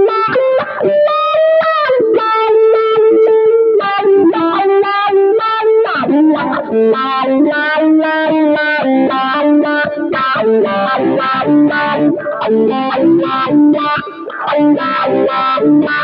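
Electric guitar played through an effects pedalboard: a single-note lead melody with quick runs and a few string bends, busier and faster in the second half.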